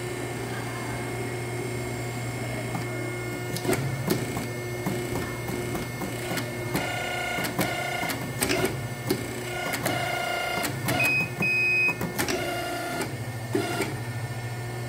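Hydraulic hose crimping machine running with a steady motor hum. A higher whine comes and goes in three spells as the crimp dies work, with sharp metallic clicks between. Two short electronic beeps sound a little after eleven seconds in, likely the machine's warning that the crimp is too short.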